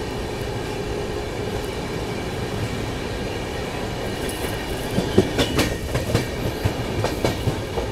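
Duronto Express train running along the track: a steady rolling rumble, with the wheels clicking over rail joints from about halfway through.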